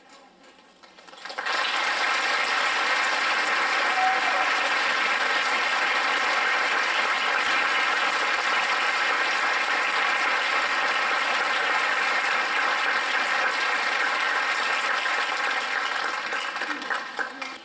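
Audience applause that starts about a second and a half in, holds steady, and dies away near the end.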